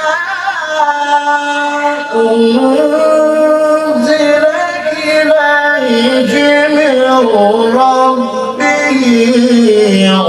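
Male qari reciting the Quran in the melodic mujawwad style into a handheld microphone. It is one long melismatic phrase of held, ornamented notes that bend and step in pitch, rising to a higher note about two seconds in.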